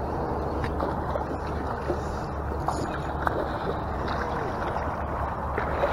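Steady low rumble of wind buffeting the microphone, with a few faint scattered ticks.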